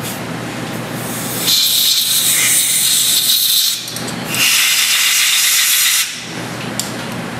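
Compressed-air blow gun blasting twice, each a loud hiss lasting about two seconds, aimed into a Harley-Davidson Twin Cam cylinder head to clear chips from the freshly machined compression-release hole. A steady shop hum runs underneath.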